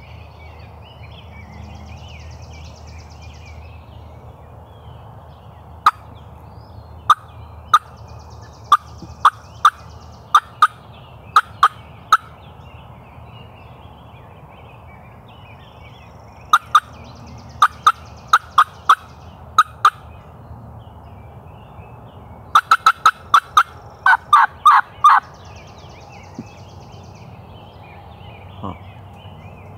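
Hen-turkey yelps worked on a hand-held turkey call, loud and close: two strings of sharp yelps at about two a second, then a fast run of cutts about three quarters of the way through, meant to strike a gobbler. Songbirds chirp faintly behind.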